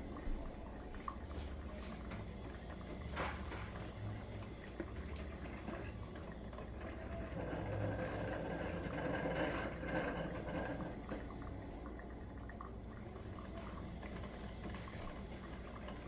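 Cuisinart drip coffee maker brewing, its heated water bubbling and dripping through, growing louder for a few seconds around the middle.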